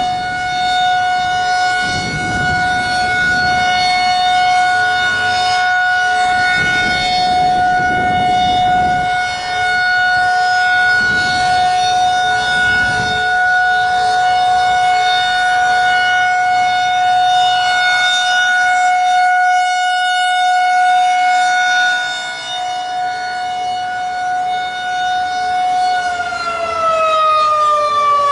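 Federal Signal 2001 outdoor warning siren sounding a steady single tone during a test, then starting to wind down, its pitch falling, near the end.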